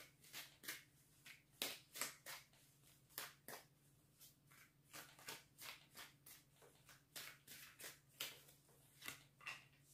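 A deck of cards shuffled by hand: faint, irregular clicks of cards slipping and tapping against each other, a few every second.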